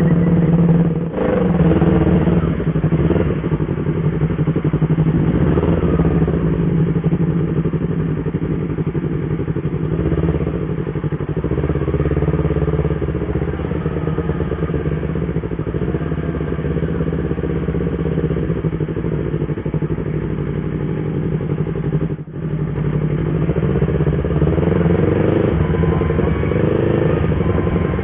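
Yamaha YZF-R25 parallel-twin engine running continuously while the motorcycle is ridden, its note dipping briefly twice, about a second in and again about three quarters of the way through.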